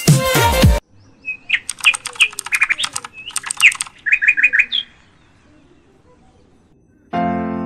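Small birds chirping: a quick run of short, sharp chirps and brief calls for about four seconds, then a pause. Electronic music cuts off just before the chirps, and piano music begins near the end.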